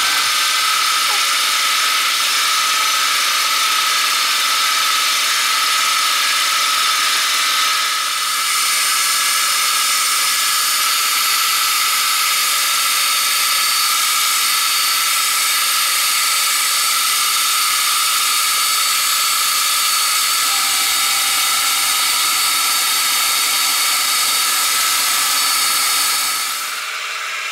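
Milling machine running and cutting a steel plate clamped to its table: a steady, high-pitched cutting noise with a constant whine. It dips briefly about eight seconds in and drops off sharply near the end.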